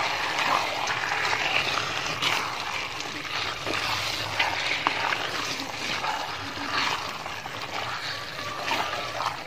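Large pieces of raw beef being stirred and turned through a wet masala in a big metal pot with a spatula: uneven wet sloshing with scattered small clicks and scrapes.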